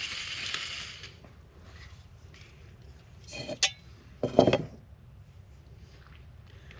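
Cookware and utensils clanking: a sharp ringing clink about three and a half seconds in, then a heavier knock a moment later. A hiss fades out in the first second.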